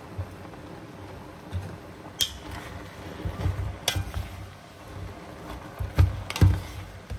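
Wooden spatula stirring chopped vegetables in a cooking pot, with dull knocks and a few sharp clicks against the pot, the loudest about six seconds in.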